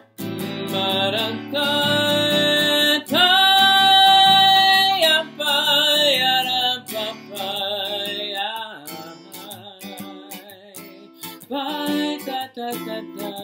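Acoustic guitar strummed while a man sings a melody without words, holding one long note about three seconds in.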